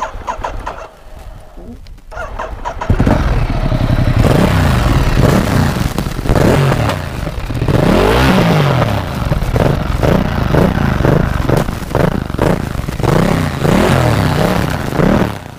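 Ducati Multistrada 1200 S L-twin engine starting about three seconds in, then revved in repeated blips, its pitch rising and falling with each throttle blip.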